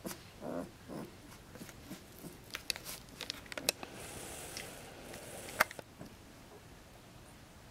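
Newborn Alaskan Malamute puppies stirring in their sleep: two soft, brief grunts in the first second, then faint scattered clicks and soft rustles.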